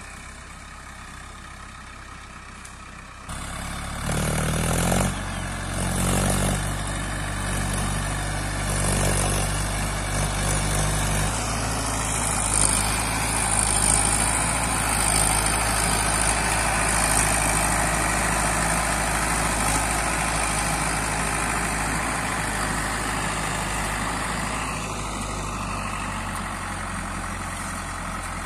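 Diesel tractor engine revving up about three seconds in, then running steadily under load as it pulls a trailer heavily loaded with sugarcane.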